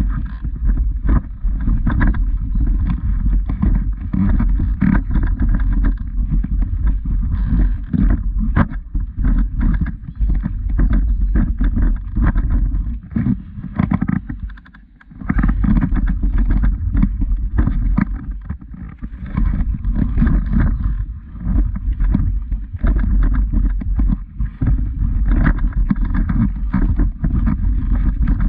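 Loud, muffled low rumble on a walking camera's microphone, with irregular crunching steps on a stony path. The rumble drops away briefly about halfway through.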